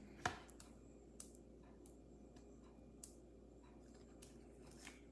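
Near silence with a few faint, sharp clicks and taps from trading cards being handled and sorted, the clearest about a quarter second in.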